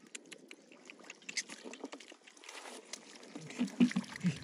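Water dripping and splashing as wet catfish are handled on wet straw, with crackling straw throughout. A few louder wet slaps near the end.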